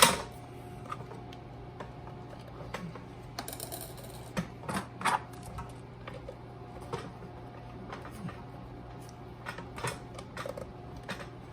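Hands wrapping thread seal tape onto a threaded plumbing fitting: scattered light clicks, taps and rustles, with a short rasp a few seconds in. A sharp knock comes right at the start, and a steady low hum runs underneath.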